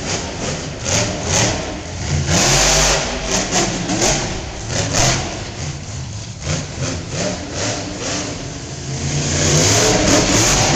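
Monster truck's supercharged V8 engine revving hard and unevenly as it tears around a dirt arena floor. A loud rush of noise comes about two seconds in and again near the end, when it drives onto the crushed cars.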